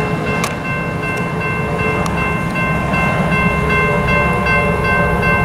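Amtrak Silver Meteor passenger train approaching, its diesel locomotive rumbling low, with several steady high tones over it.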